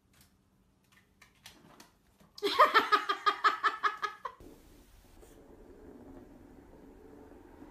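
A person laughing, a burst of quick repeated giggles lasting about two seconds, after a few faint clicks. It stops suddenly and gives way to faint steady low noise.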